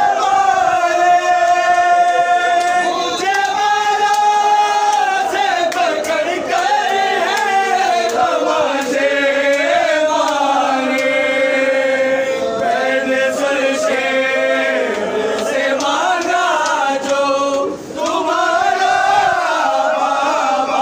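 A group of men chanting an Urdu noha, a Shia mourning lament, in long, drawn-out melodic lines. Sharp strikes of matam (hand chest-beating) run through the singing.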